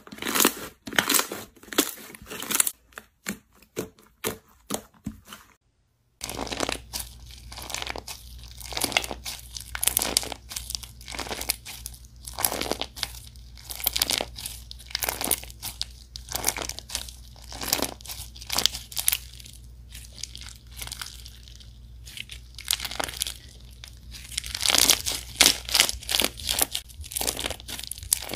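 Hands squeezing, pressing and stretching thick white slime, giving dense, irregular crackling and tearing sounds. After a brief cut to silence about six seconds in, a white slime studded with small yellow cubes is pulled apart and squeezed, crackling over a faint steady low hum.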